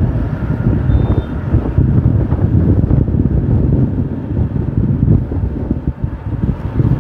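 Motorcycle under way at low speed, its engine running under heavy wind buffeting on the microphone, a low, fluttering rumble.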